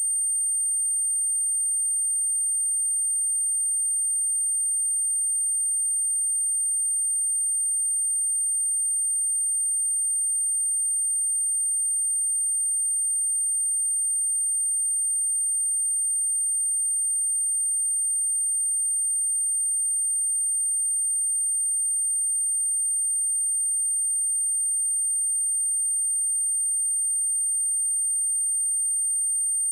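Steady, unbroken high-pitched pure sine tone at 8784 Hz, played as a speaker test tone.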